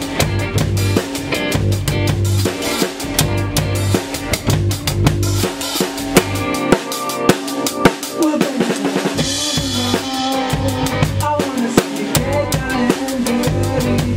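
A band playing live in a rehearsal room: a drum kit driving a steady beat of bass drum, snare and cymbals under an electric bass riff and electric guitars. The low bass line drops out for about a second around the middle, then comes back.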